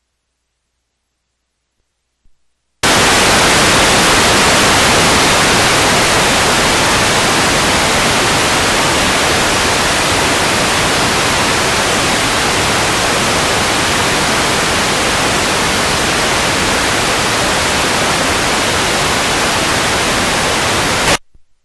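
Loud, steady hiss of analog TV static, the noise of an empty video signal showing snow. It starts abruptly about three seconds in after silence and cuts off suddenly near the end.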